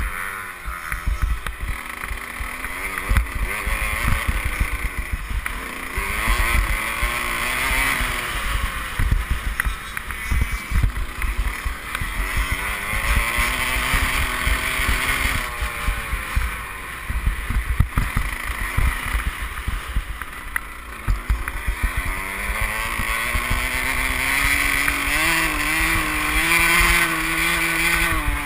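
Motocross bike engine revving up and falling back again and again as it is ridden hard round a dirt track, with wind rush and knocks from the bumpy ground on the bike-mounted camera.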